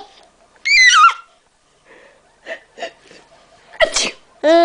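A woman sneezing twice: a high-pitched sneeze that falls in pitch about a second in, and another sharp sneeze near the end with a voiced cry.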